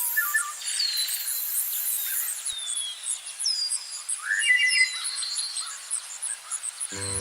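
Birds calling in short falling whistles and chirps over a high, evenly pulsing insect chirp. Music comes in right at the end.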